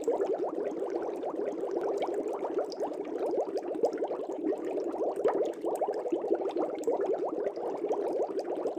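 Aquarium air bubbles heard underwater: a dense, continuous bubbling of many quick little blips, each rising slightly in pitch.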